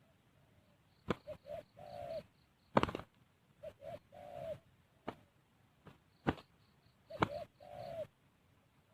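Spotted dove cooing: three phrases, each two short coos and a longer drawn-out one. Sharp knocks between the phrases, the loudest about three seconds in.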